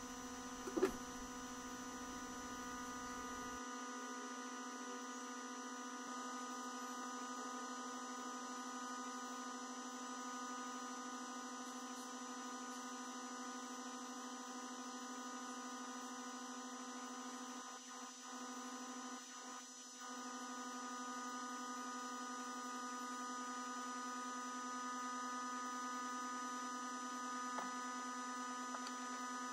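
Egg incubator running with a steady electrical hum of several even overtones, typical of its fan motor. A single short sound comes about a second in.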